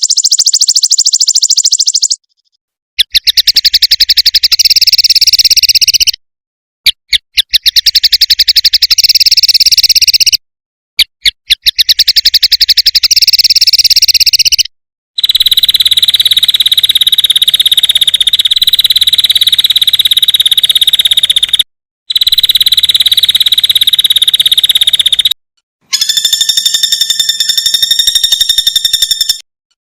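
A string of short clips of fast, high-pitched buzzing trills, each a few seconds long and ended by a sudden dead silence. These are isian recordings: fill-in sounds played to train competition songbirds. The later clips turn into a steadier, continuous buzz.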